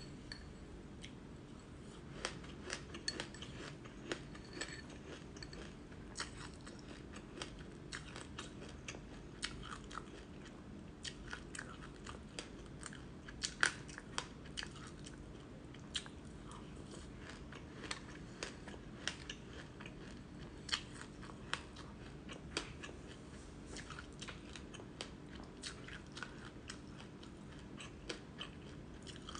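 Close-up chewing and crunching of a mouthful of black sesame seeds with frozen passionfruit pulp, a run of sharp irregular crackles over the chewing, one loudest about halfway through.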